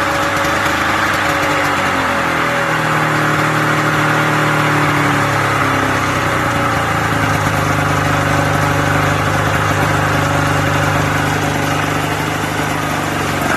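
Ski-Doo 440 two-stroke snowmobile engine running steadily, its pitch easing down a little over the first few seconds and then holding even.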